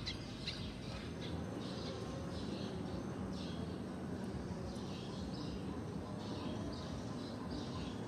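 Eurasian tree sparrows chirping, short chirps repeated about twice a second, over a steady low rumble of background noise.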